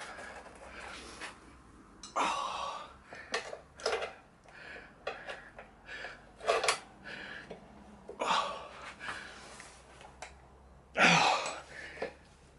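A man gasping and breathing hard with effort while levering a tyre off a motorbike wheel rim, with scrapes and metallic clinks of the tyre lever against the rim. The loudest burst comes near the end.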